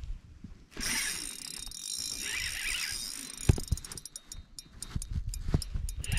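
Shimano Vanford 2500 spinning reel clicking as line is reeled in: rapid sharp ticks that come thick in the second half, with a couple of loud knocks from handling the rod.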